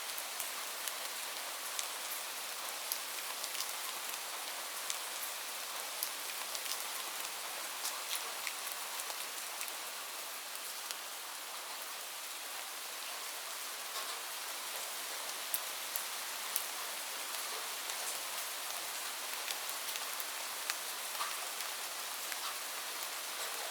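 Light rain falling steadily, with a constant hiss and many scattered drops ticking sharply on surfaces.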